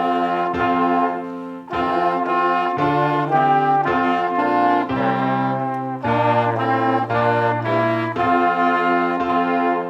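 Brass instruments playing music in held chords. The phrases break off briefly about two seconds in and again around six and eight seconds.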